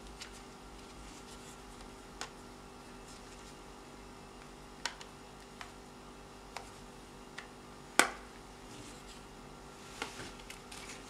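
Scattered small clicks and taps from hands handling a camcorder and its battery pack, one sharper click about eight seconds in and a few quick ones near the end, over a faint steady hum.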